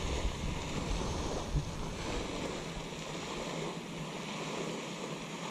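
Wind buffeting the microphone over a steady rushing hiss, the buffeting easing off about halfway through.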